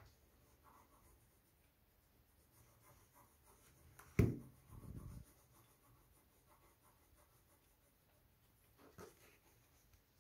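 Faint rubbing and handling noise from a smartphone in a flip case being held and tapped, with one sharp knock about four seconds in and a softer click near the end.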